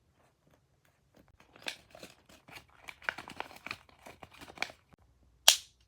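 Homemade fidget toys being handled, with a run of light crinkling, rustling and clicking. A single sharp snap comes near the end.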